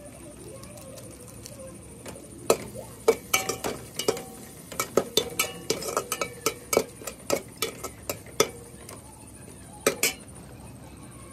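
A metal ladle stirring food in an aluminium cooking pot, clanking and scraping against the pot's sides in quick, irregular knocks with a short metallic ring. The knocks start a couple of seconds in and run for about six seconds, with two more near the end.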